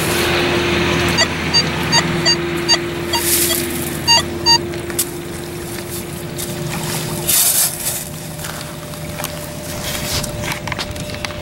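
Long-handled stainless steel sand scoop digging into wet beach sand at the water's edge, with sand and water rushing through its perforated basket as small waves wash in. A quick run of short pings comes about one to four seconds in.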